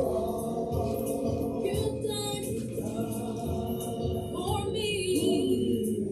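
Gospel music: a choir singing over instruments with a steady beat.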